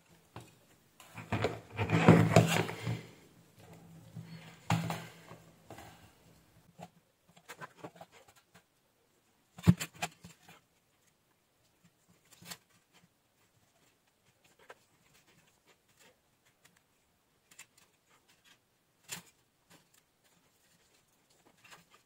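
Small plastic parts and wires handled: a burst of rustling and scraping about two seconds in, then scattered light clicks and taps.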